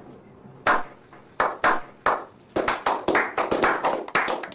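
Slow clap by a few people: single hand claps spaced well apart at first, then coming faster and closer together into quick applause.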